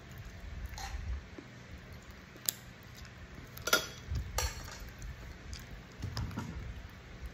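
Close-up eating sounds of a man gnawing and sucking meat off a piece of chicken held in his fingers: scattered sharp mouth clicks and smacks, the loudest about three and a half seconds in, over soft low chewing thumps.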